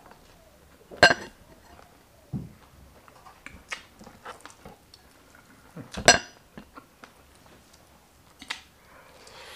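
Dishware clinking sharply twice, about five seconds apart, with a short ringing tail, among small taps and clicks as hands handle chicken pieces on a plate.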